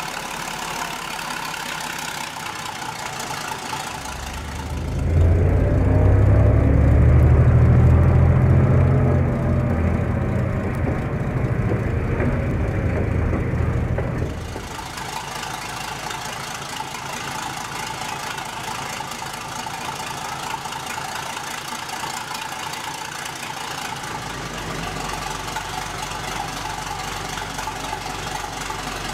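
An engine running with a knocking beat. From about five seconds in it grows much louder and deeper, with its pitch rising and falling, and at about fourteen seconds it drops back to a steadier, quieter running sound.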